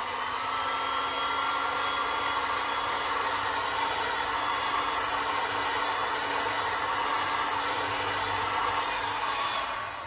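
Heat gun blowing steadily, with a faint motor whine, as it warms the edge of cured resin to loosen the masking tape.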